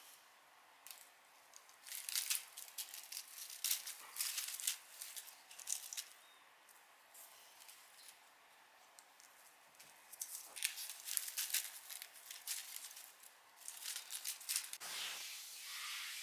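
Two spells of soft crinkling and rattling handling sounds, a few seconds each, with a rising swish near the end.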